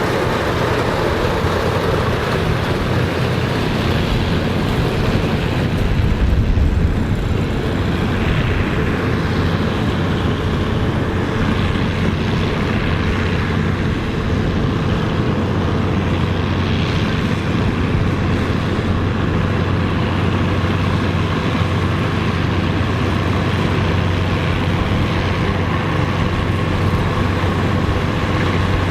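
Engine of old farm harvesting machinery running steadily, a continuous low hum with a brief louder swell about six seconds in.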